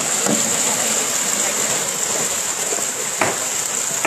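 Piranhas thrashing at the surface in a feeding frenzy, the water churning and splashing, with one sudden sharper hit about three seconds in, over a steady high-pitched hiss.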